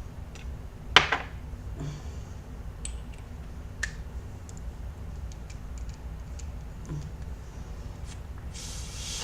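Handling of vaping gear while e-liquid is dripped onto an atomizer: small clicks and taps, one sharp click about a second in, and a short hiss near the end.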